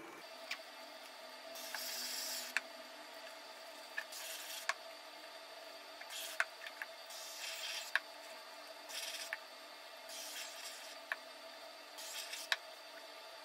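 A gloved hand and hand tool rubbing and pressing down a waterproofing membrane sheet: about six short scraping strokes, each under a second, with sharp clicks between them. A faint steady hum runs underneath.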